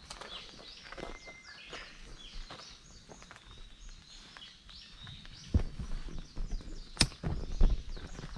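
Footsteps on a gravel path with small birds chirping throughout. A few louder, deeper thumps come in the second half.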